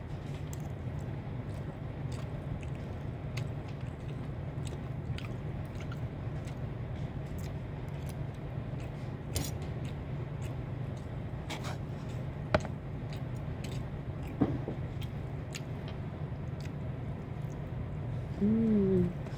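Someone eating fried rice: a metal spoon and fork clicking and scraping in a styrofoam food container, and chewing, over a steady low hum. A short hummed voice sound near the end.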